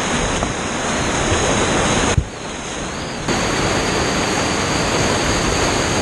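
Whitewater of a river rapid rushing loudly and steadily. There is a short thump about two seconds in, then the rush is briefly quieter for about a second before it returns.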